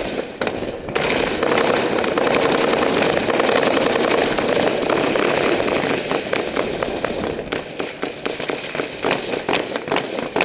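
Loud automatic gunfire in a firefight: a dense, continuous stream of shots for about the first six seconds, then quick separate shots and short bursts, several a second.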